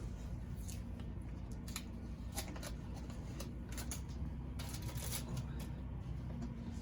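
Light handling noises: scattered short clicks and crackles, with a longer rustle about five seconds in, over a steady low hum.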